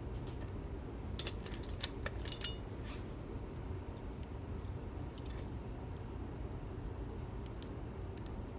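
Metal lock picks clinking against the lock and each other while a high-security lock is being picked: a cluster of light metallic clicks and short ringing jingles about a second in, then a few single ticks later, over a steady low hum.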